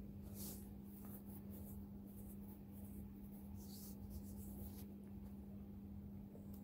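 Faint room tone: a steady low hum with a few faint, brief rustles.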